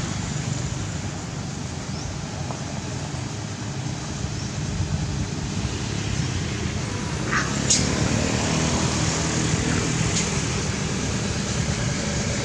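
Steady low rumble of a motor vehicle engine running, with a short, sharp rising chirp about seven and a half seconds in.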